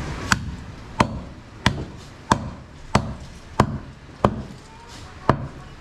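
Butcher's cleaver chopping goat meat on a wooden chopping block: a steady series of sharp chops, about eight strokes, one every two-thirds of a second.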